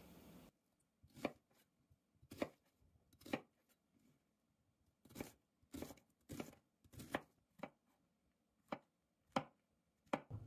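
Chef's knife chopping an onion and then slicing mushrooms on a bamboo cutting board. Separate, unhurried strokes, each a sharp knock of the blade against the wood, about eleven in all.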